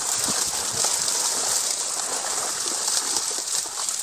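River water splashing and sloshing steadily as fishermen gather a seine net full of fish in the shallows, over an even hiss.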